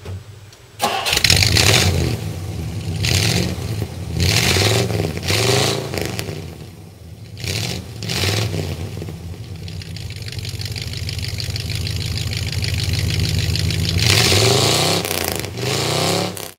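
Car engine of a 1957 Studebaker Silver Hawk starting about a second in and being revved in repeated blips, the pitch rising and falling with each, settling to a steadier run in the middle and revved again a couple of times near the end.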